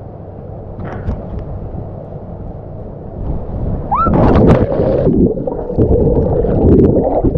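Waterfall water rushing, then about four seconds in a short rising squeal and much louder splashing and churning water as a person slides down the rock chute into the pool. The sound cuts off suddenly at the end.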